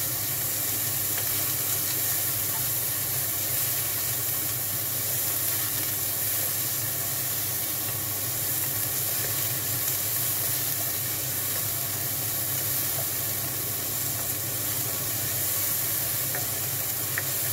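Meat frying in hot oil with garlic and onion in a wok, sizzling steadily as a wooden spoon stirs and scrapes it around the pan. A steady low hum from the kitchen exhaust fan runs underneath.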